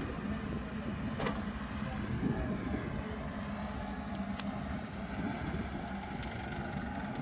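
Diesel engine of a Volvo wheeled excavator running with a steady low hum while it digs and swings soil into a dump truck.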